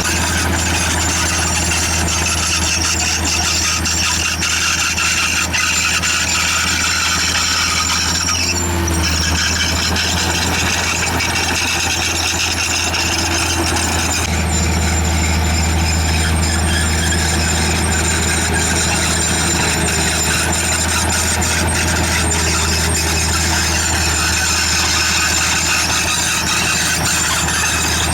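Bulldozer's diesel engine running steadily under work, a deep hum that grows louder about halfway through, with high squealing tones above it.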